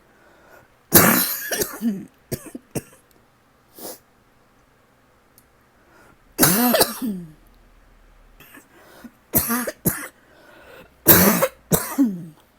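A person coughing in repeated fits from a throat tickle that will not go away: four loud coughing bouts, several ending in a short falling vocal sound, with brief throat catches in between.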